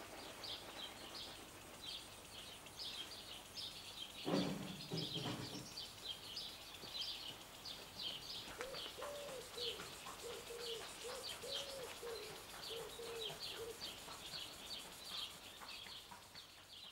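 Birds chirping throughout. A louder, lower call sounds about four seconds in, and a low cooing call repeats several times from about nine seconds in.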